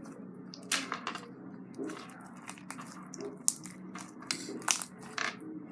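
Blue foam slime with foam beads in it being squeezed and kneaded by hand, giving irregular crackling clicks and soft squishes.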